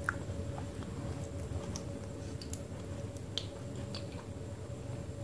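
Wet, squishy mouth sounds of someone eating a thick Fuller's earth (multani mitti) clay paste from a spoon, with scattered small clicks and smacks.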